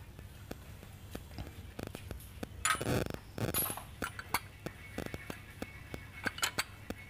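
Irregular metallic clinks and scrapes of an oil filter wrench being set on and turned against a new spin-on oil filter as it is tightened. The loudest clatter comes about three seconds in, with more clinks a little after six seconds.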